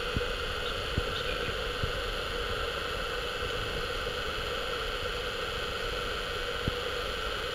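Homebuilt axial-flux brushless motor (3D-printed ABS and polycarbonate, six coils, eight N50 magnets) running steadily at about 5,800 rpm under a hobby ESC: a constant hum and whine made of several steady tones, with a few faint clicks.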